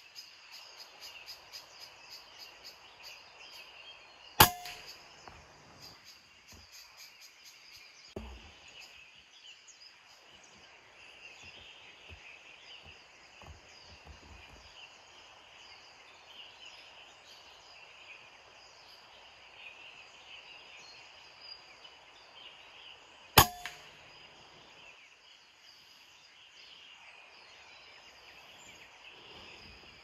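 Two shots from a PCP air rifle, each a single sharp crack, about four seconds in and again about twenty-three seconds in, with a softer knock about eight seconds in. Insects chirr steadily underneath.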